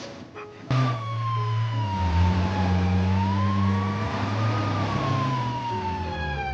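An ambulance siren starts suddenly just under a second in and wails in one slow glide, falling, rising, then falling again, over the low rumble of the vehicle's engine.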